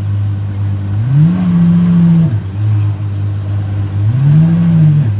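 Sports car engine idling with two short throttle blips, each rising in pitch, holding about a second and dropping back to idle: about a second in, and again near the end.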